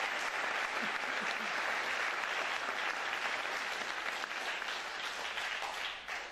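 Audience applauding; the clapping dies away near the end.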